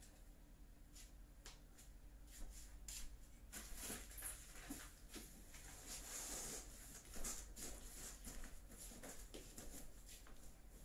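Faint handling noises: scattered footsteps and knocks, then a longer scraping rub about six seconds in as a large cardboard box is taken hold of and carried.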